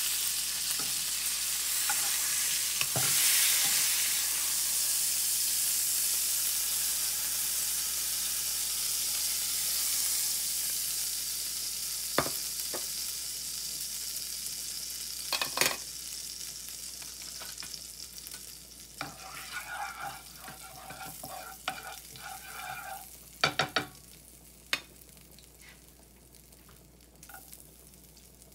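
Beef steak sizzling as it sears in oil in a nonstick frying pan: a steady hiss that dies down over the second half once the pan is emptied. A few sharp knocks against the pan come through.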